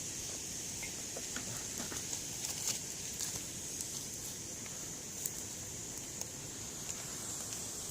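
Wood campfire crackling, with scattered sharp pops about once a second over a steady high-pitched hiss.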